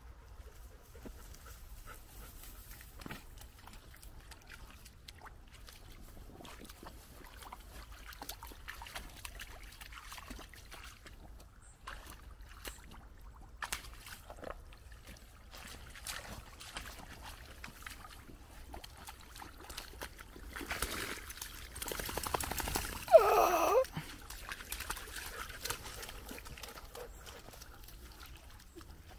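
Golden retriever sloshing and splashing in a muddy puddle, with scattered small splashes and clicks. Late on comes a louder stretch of splashing and a brief, loud cry falling in pitch.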